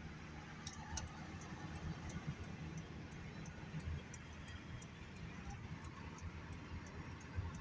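Road and engine noise inside a moving vehicle's cabin at highway speed: a steady low rumble with faint, irregular small clicks.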